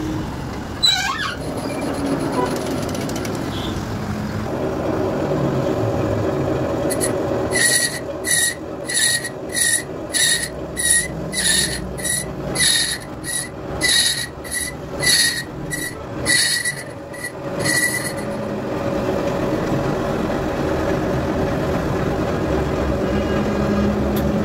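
A lathe turns a spoked motorcycle wheel with a steady running hum while a cutting tool bores out the hub's brake drum. About a third of the way in, the tool starts squealing in short, high-pitched pulses about twice a second. After some ten seconds the squeal stops and the steady hum carries on.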